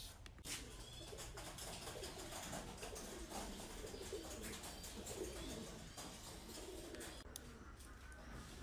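Doves cooing faintly in repeated low calls, with a few soft clicks and taps.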